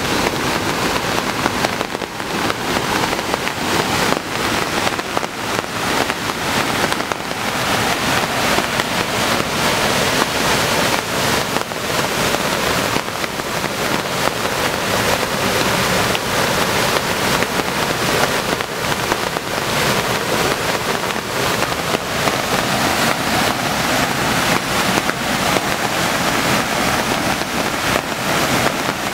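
A stream in full flood: muddy water rushing and pouring over a small weir in a steady, loud rush, with rain falling.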